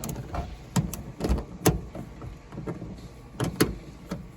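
Irregular sharp metallic clicks and knocks of a hand wrench working a seat-belt anchor bolt, several spaced over a few seconds with the loudest near the end.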